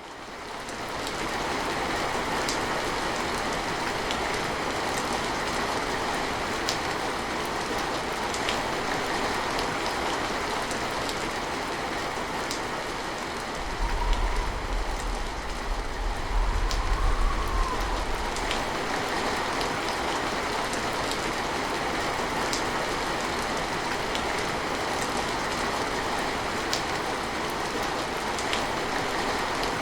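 Steady rain falling, with sharp individual drops now and then, fading in over the first second. About halfway through, a low rumble of thunder builds and rolls for about five seconds, then dies away under the rain.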